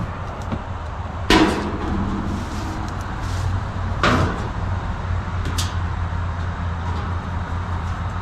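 Galvanized sheet-metal parts of a chicken nesting box clanking as they are handled and fitted: two loud knocks with a short ring, then a lighter one, over a steady low hum.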